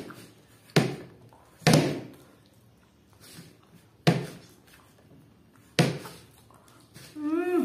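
Four sharp knocks, a second or two apart, from plates and faces bumping on a wooden table as two people eat noodles straight from their plates without hands. A brief hum-like voice sound comes near the end.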